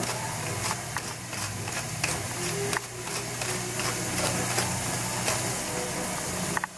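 A hand-twisted spice grinder mill grinding seasoning, a run of small gritty clicks, over a pan of mushrooms simmering in sauce, with a steady low hum behind. The grinding stops shortly before the end.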